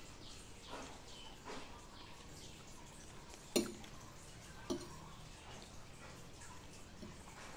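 Eating sounds: soft chewing and mouth noises, and a metal fork clinking sharply on a plate twice, about a second apart, midway through.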